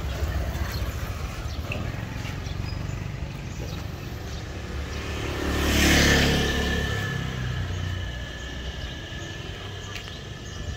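A motor vehicle passing by on the street, growing louder to a peak about six seconds in and then fading, its engine note dropping in pitch as it moves away.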